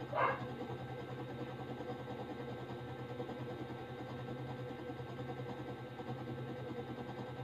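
A steady low mechanical hum, like a small motor running, with one short sound just after the start.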